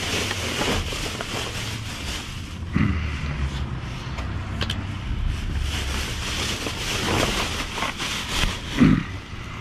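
Plastic trash bags and cardboard rustling and crinkling as gloved hands dig through a dumpster, with wind buffeting the microphone. A few knocks, the loudest a thump near the end.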